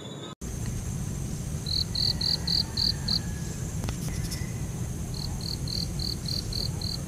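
Insect chirping in two runs of short, evenly spaced chirps, about four a second, over a steady low background rumble.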